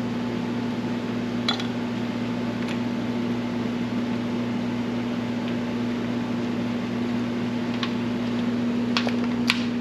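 Steady mechanical hum, like a fan running, with a few faint light clicks scattered through it.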